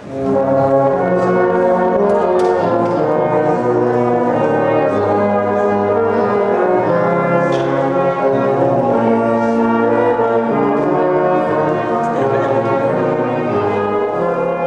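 Brass band playing slow, sustained chords.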